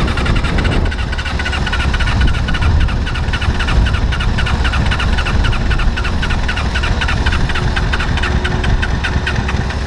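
Suzuki RF600 inline-four motorcycle engine running steadily as the off-road buggy drives, with a heavy low rumble and a fast, regular ticking over it.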